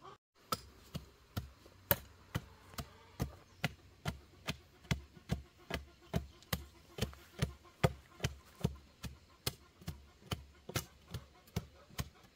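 Long wooden pole ramming soil around the base of a newly set wooden fence post, tamping it firm: steady, evenly spaced thuds, about two and a half a second, starting about half a second in.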